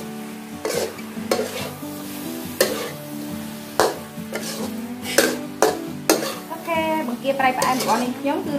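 Shrimp frying in a metal wok, the sauce sizzling as a metal spatula stirs and scrapes them around. The spatula clacks sharply against the pan about once a second.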